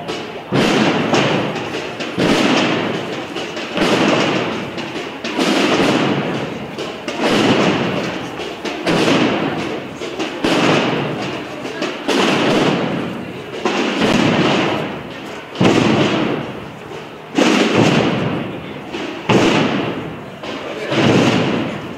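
Procession drum corps of snare drums and bass drums (tambores and bombos) playing a repeating march rhythm. A loud accented phrase starts about every second and three-quarters, then fades before the next.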